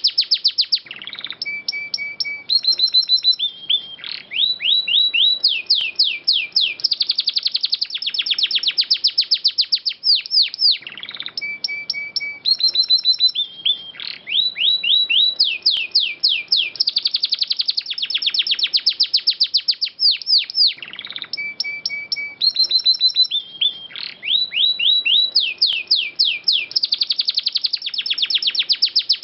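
Domestic canary singing fast trills of rapid down-slurred notes, broken by a few short steady whistles. The same phrase of about ten seconds repeats three times: a looped canary masteran recording, played to tutor other songbirds.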